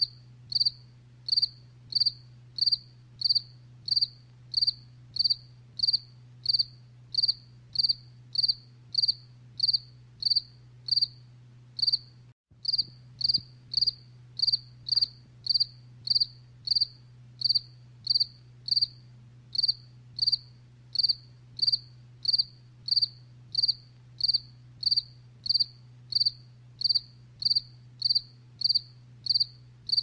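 Cricket chirping: a regular series of short, high-pitched chirps, close to two a second, over a faint steady low hum.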